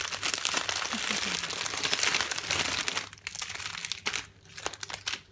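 Plastic snack-bag packaging crinkling as hands open a bag of individually wrapped crepes and pull the wrapped rolls out. The crinkling is dense for about three seconds, then turns to quieter handling with a few light clicks.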